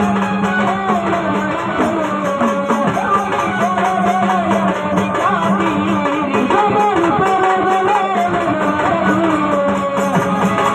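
Live Marathi folk music for a gavlan performance: a sung melody over a sustained keyboard note, with hand drums keeping a steady beat.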